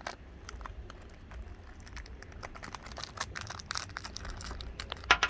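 Small plastic wrapper crinkling and rustling under fingers as a tiny surprise packet is worked open, with scattered small clicks and a sharper click near the end.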